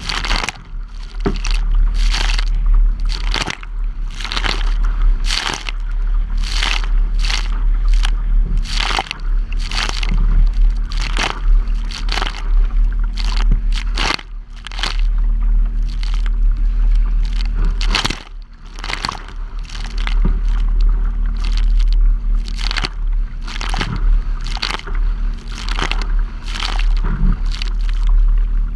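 Waves repeatedly slapping and splashing against the bow of a plastic kayak as it pushes through choppy water, about one or two splashes a second, with spray hitting the camera. A steady heavy wind rumble on the microphone underlies it.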